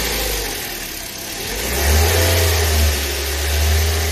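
Car engine running, with a steady low hum and hiss; about two seconds in it revs up briefly and the pitch rises and falls back.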